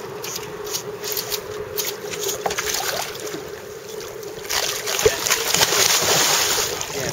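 Handling noises aboard a small fishing boat: knocks and rustling over a faint steady hum, with a sharp knock about five seconds in and a louder noisy scuffle from there to near the end.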